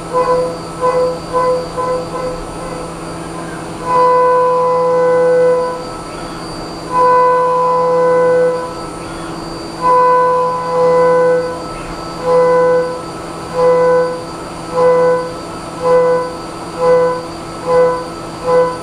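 Haas Mini Mill 2 CNC mill cutting aluminium with a 3/8-inch Imco M223 endmill on an adaptive clearing path. The cutter sings one steady pitched note each time it bites into the stock: quick short pulses at first, then three stretches of about two seconds each, then pulses about once a second. Under it runs the steady hum of the spindle.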